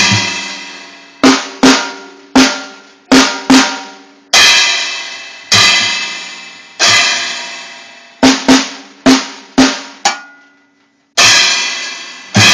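Drum kit played slowly and unevenly by a young child: long-ringing crashes alternate with shorter drum hits, often in quick pairs, with bass drum underneath. The hits pause for about a second near the end, then the crashes resume.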